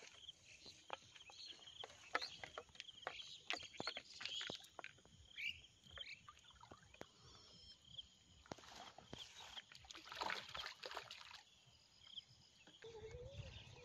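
Water splashing and sloshing in short irregular bursts, with a louder spell of splashing about two-thirds of the way in, and birds chirping now and then.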